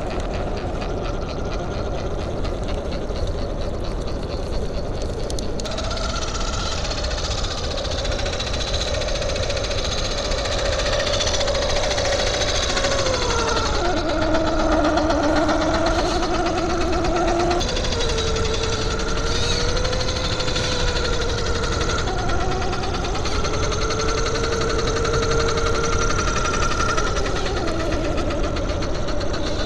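Brushless motor and geared drivetrain of an Axial SCX10 III RC crawler whining and rattling as it crawls at low speed, the whine's pitch rising and falling with the throttle.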